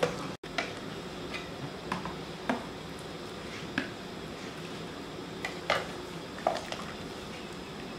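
Metal ladle knocking and clinking against a stainless steel cooking pot as stuffed bitter melon pieces are set into the water: a dozen or so short, irregular knocks over a steady low background.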